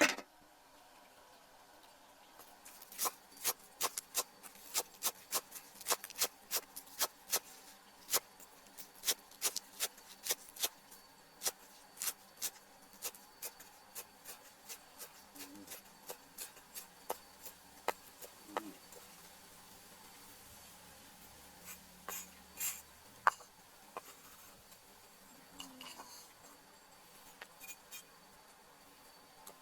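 A run of short, sharp taps or knocks, about two a second for a while, then sparser and irregular.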